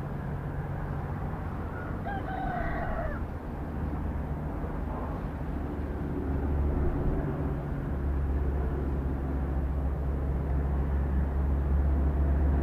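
A rooster crows once, about two seconds in. Under it runs a steady deep rumble that grows louder about six seconds in.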